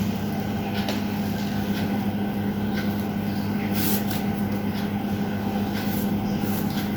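Steady low electrical hum, with a few brief rustles and clicks as a new motorcycle helmet is taken out of its cover and packaging.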